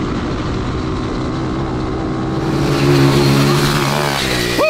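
A high-output 140cc four-speed semi-auto pit bike engine in an off-road go-kart runs hard under load, heard from onboard with wind noise. The engine note steadies around three seconds in, then drops off near the end as the kart slows, and a short falling high sound comes right at the end.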